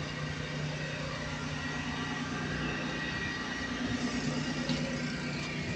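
Steady drone of running machinery: a low hum with a thin, high whine held above it.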